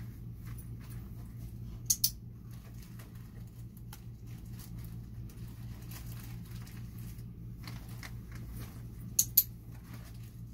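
Soft rustling as a dog noses at a fabric bag over a steady low hum. A sharp double click cuts in twice, about two seconds in and again near the end.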